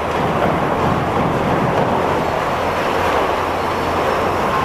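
Hitachi Zaxis high-reach demolition excavator at work: a steady, dense mechanical noise of its engine and hydraulics with a low hum underneath, as its crusher works at reinforced concrete floors.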